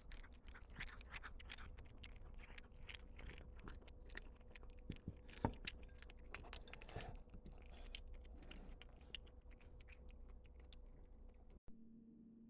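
A cat eating dry food, its teeth crunching kibble in a quick, irregular run of small clicks, cut off abruptly near the end.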